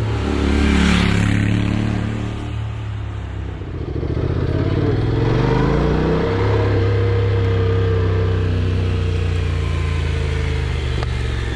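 Honda NC750X parallel-twin motorcycle engine running under way, its revs climbing about four to six seconds in and then holding steady.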